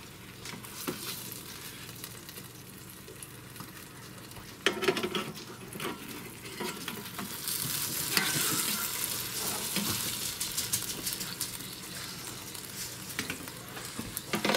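Hot hamburger patties sizzling in the open basket of a Cook's Essentials air fryer, with a spatula scraping and bumping against the basket's grate as the patties are lifted and moved. The sizzling grows louder about halfway through.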